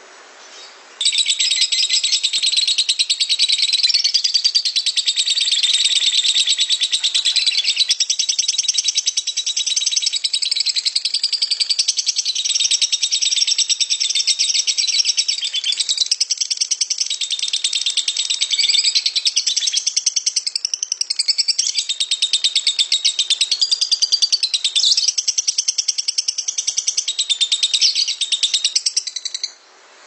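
Lovebird's long 'ngekek' song: a harsh, rapid, unbroken chattering trill. It starts about a second in and stops suddenly just before the end.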